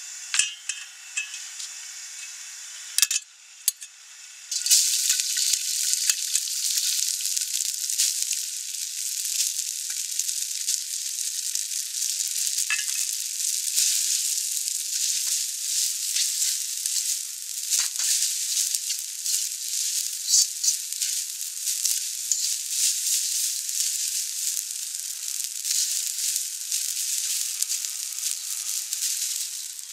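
Glass noodles sizzling in hot oil in a wok. The sizzle jumps from a faint hiss to loud about four and a half seconds in, then holds steady while a metal spatula tosses the noodles, with a few sharp knocks now and then.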